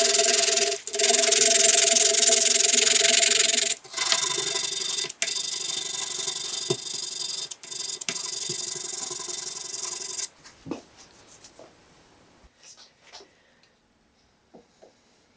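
Sandpaper rubbed by hand back and forth over the end of a wooden axe handle and its wedge, sanding them flush with the axe head's eye: a steady rasping hiss with a few short breaks. It stops suddenly about ten seconds in, leaving only faint clicks of handling.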